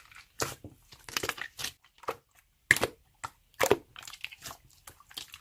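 Irregular crunching and crinkling noises, a string of short sharp bursts at uneven spacing.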